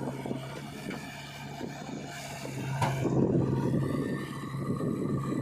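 Heavy machine's diesel engine running with a steady hum, swelling louder for a couple of seconds about halfway through and again near the end, with a brief sharp click just before the first swell.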